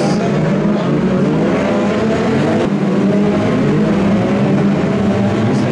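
Several BriSCA F2 stock cars racing together, their engines revving up and down in overlapping rising and falling tones.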